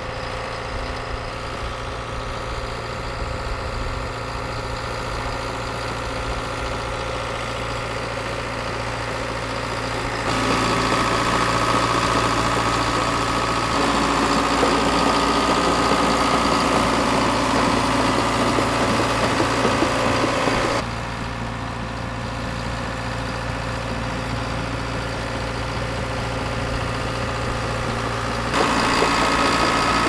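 Diesel engine of a crawler dozer running steadily as it pushes and levels dirt with its blade. The sound jumps louder about ten seconds in, drops back about twenty-one seconds in and jumps louder again near the end.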